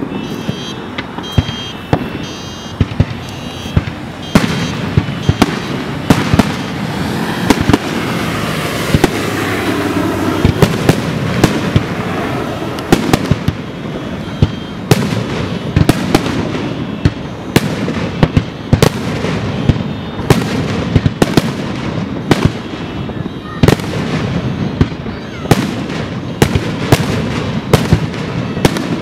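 Aerial fireworks display: shells bursting one after another in sharp bangs, often more than one a second, over a continuous crackle and rumble.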